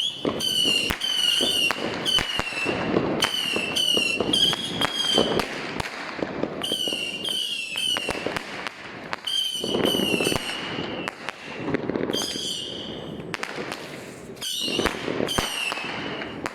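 Fireworks: a rapid string of high-pitched whistling fireworks, each a short wavering whistle, mixed with sharp firecracker bangs and crackling.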